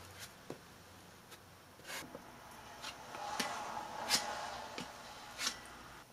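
A plastic spreader scraping and tapping as body filler is worked by hand, in irregular short scrapes with faint rubbing between them. The filler is already starting to harden, having kicked faster than expected from too much hardener.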